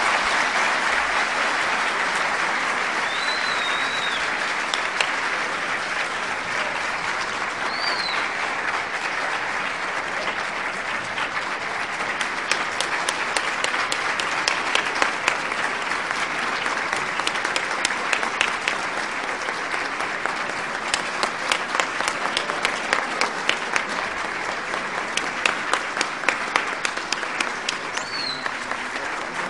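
Audience applauding steadily in a hall. Loud separate claps stand out more in the second half.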